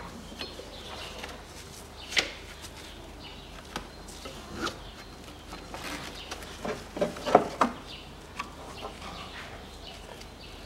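Hand work in a car engine bay: scattered light clicks and knocks of parts being handled and fitted around the alternator and pulleys, with a quick cluster of sharper knocks a little past the middle.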